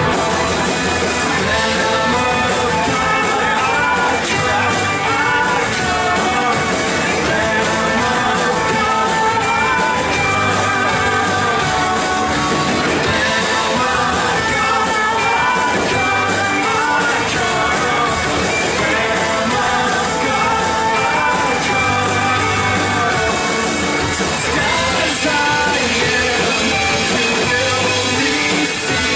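Live church worship band playing a rock-style song, with voices singing over guitar and drums.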